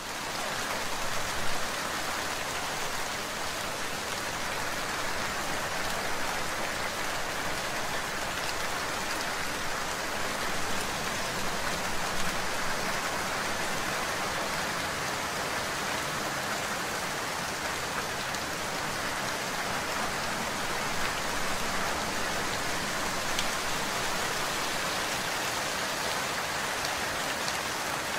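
Steady rain falling: an even hiss with scattered single drop impacts.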